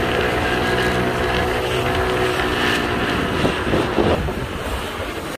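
An engine running steadily, a low droning hum over a noisy rush, easing off a little near the end.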